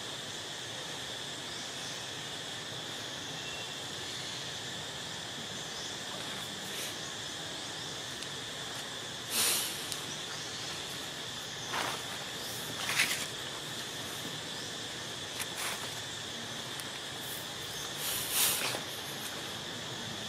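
Steady insect drone in the forest, a constant high-pitched hiss holding two fixed pitches. Several short bursts of rustling noise break through it in the second half.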